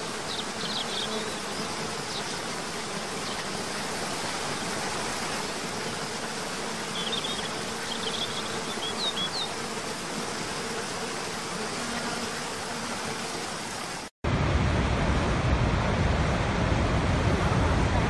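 Waterfall rushing steadily, with a few short bird chirps over it. About 14 s in there is a brief gap, then the louder, deeper rush of Niagara's Horseshoe Falls with wind on the microphone.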